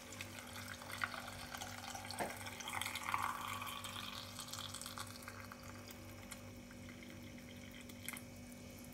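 Boiling water poured from an electric kettle into a glass jar packed with salted lemons: a faint, steady trickle of water filling the jar, a little louder in the first half.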